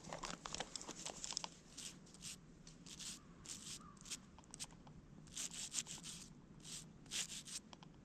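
Faint, irregular scratching and rubbing: dirt being rubbed off a freshly dug metal keychain by hand.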